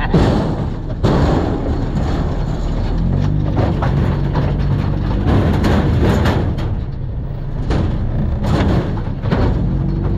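Off-road vehicle engine running with a steady low hum, broken by several sudden noisy bursts.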